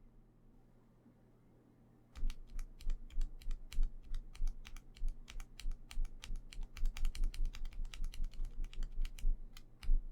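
Typing on a MonsGeek M1W mechanical keyboard fitted with factory-lubed Akko V3 Lavender Purple Pro tactile switches. The key clacks begin about two seconds in and continue in a fast, uneven run.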